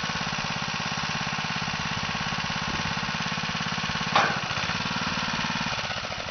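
Small petrol engine of a tracked mini dumper running steadily, with one loud clunk about four seconds in as the tipped skip comes back down onto its frame. The engine sound begins to fall away near the end.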